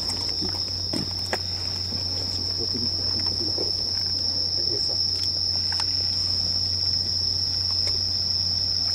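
Night insects, crickets, trilling in one unbroken high note, over a low steady hum.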